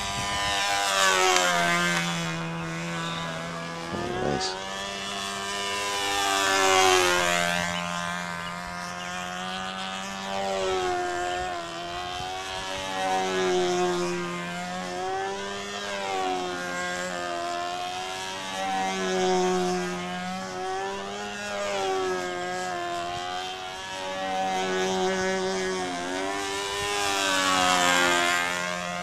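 Control-line model airplane's motor and propeller buzzing steadily as the plane circles on its lines, the pitch wavering up and down and the sound swelling and fading as it sweeps round past the microphone on each lap.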